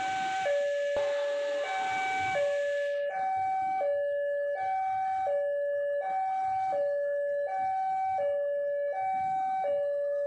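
Railway level-crossing warning alarm sounding, a steady electronic two-tone signal with a higher and a lower note taking turns, about one high-low pair every second and a half. A rushing noise underneath cuts off about three seconds in.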